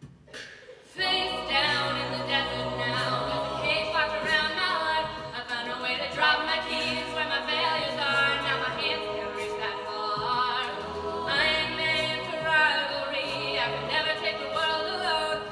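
A mixed male and female a cappella group singing a song in close harmony over a sung bass line, coming in about a second in after a brief hush.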